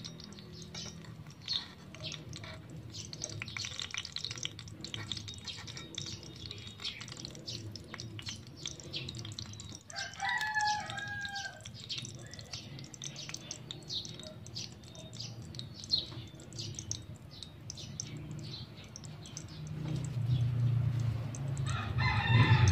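A rooster crows once about ten seconds in, a call lasting about two seconds, and starts crowing again near the end, over faint crackling throughout.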